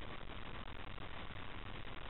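Steady low background hiss: room tone, with no distinct sound.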